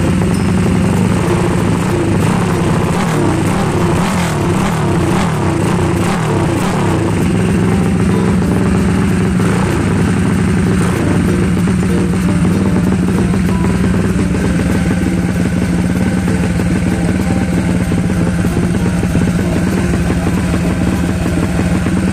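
Freshly assembled big-bore (300cc-plus) XRM 125-based single-cylinder four-stroke motorcycle engine running through a temporary upright muffler. It is blipped and revved a few times in the first several seconds, then settles into a steady idle.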